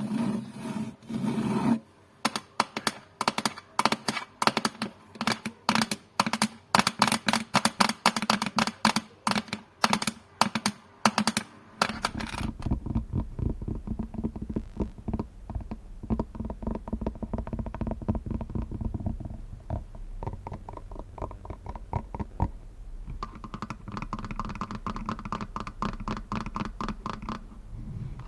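Tapping and scratching on a coffee glass: quick runs of sharp taps at first, then from about twelve seconds in a denser, faster scratching with a low rumble under it.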